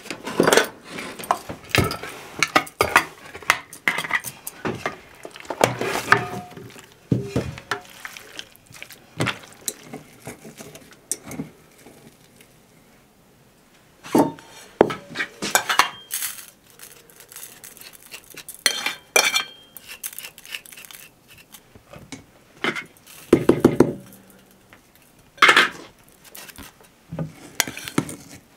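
Metal fork scraping and clinking against a glass jar as salted pork fat is dug out of coarse salt, with other dishes clinking. The clinks and scrapes come in irregular spells, with a quieter pause about halfway through.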